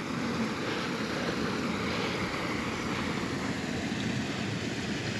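A river flowing, a steady rushing of water.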